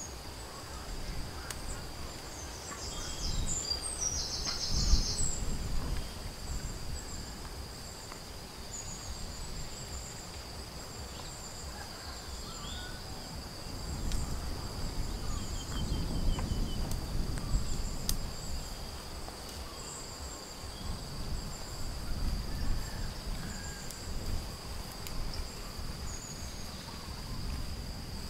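Steady, high-pitched insect drone holding one pitch throughout, with scattered faint bird chirps above it and a low rumble that swells and fades at times.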